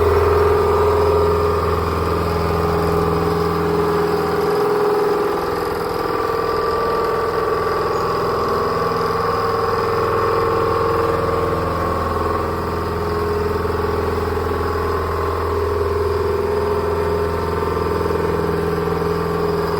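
CNC machine roughing metal with a 25.25 mm cutter: the spindle and cut run steadily, a held mid-pitched tone over a low hum, with little change in level.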